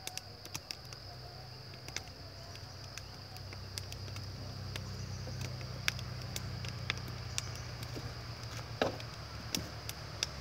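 Wood fire burning in the firebox of a brick bottle-neck kiln during a glaze firing, with irregular sharp crackles and pops over a low steady rumble that grows louder about four seconds in.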